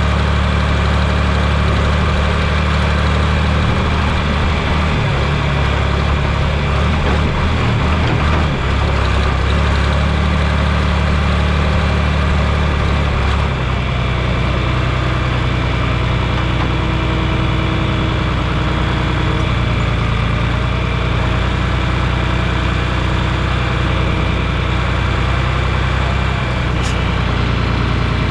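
Heavy engine of farm machinery running steadily, with a clear change in its low note about thirteen seconds in.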